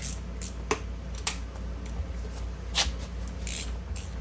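Tools and metal exhaust parts being handled: a few sharp clicks, then two short scrapes as a carbon-fibre silencer is offered up to a Lambretta's exhaust pipe for a test fit, over a steady low hum.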